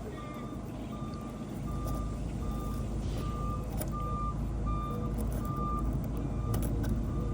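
Electronic beeper sounding short beeps at one steady pitch, about three every two seconds, over a low rumble that swells about a second and a half in. A few faint metallic clicks come in the second half.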